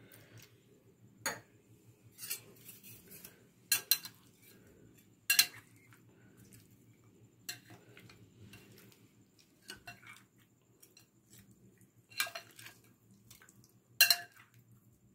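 Steel spoon stirring pieces of fish through a wet spice-and-lime-juice marinade in a glass bowl. It knocks and scrapes against the glass in irregular sharp clinks, a few seconds apart.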